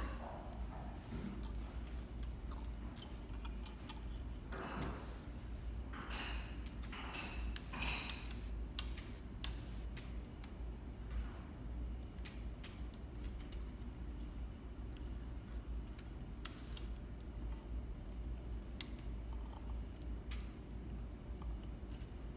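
Metal tweezers clicking and scraping against the metal looper parts inside a Juki MO-6700DA serger while fishing for a threading wire. Light scattered clicks, with a few sharper clicks a little before the middle and once more later, over a faint low hum.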